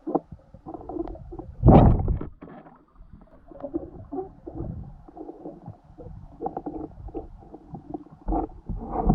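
Muffled underwater noise during a spearfishing dive: irregular gurgles and knocks, with a louder surge about two seconds in and another near the end.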